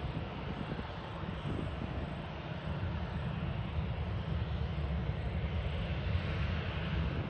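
Boeing 737-800 CFM56 jet engines running: a steady rumble and hiss that grows slowly louder.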